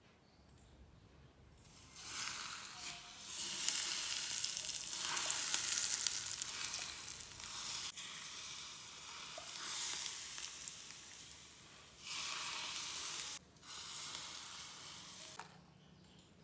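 Hot oil poured from a small pot onto chili flakes heaped on pork slices, sizzling loudly as it hits. It starts about two seconds in, eases off, then sizzles again in two short bursts near the end.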